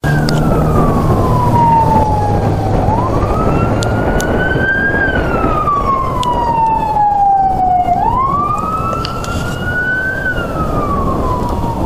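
Fire department assistant chief's SUV siren on a slow electronic wail, sliding down and back up in pitch about every five seconds, over road and engine noise.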